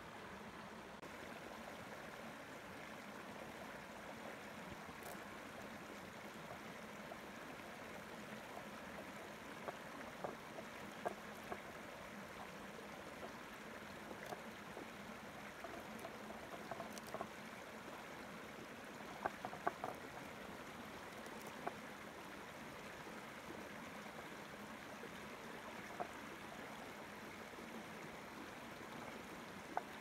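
A shallow stream flowing steadily over rocks, with a few short sharp clicks and taps, a cluster of them about halfway through, from a knife and hands working fish on a wooden cutting board.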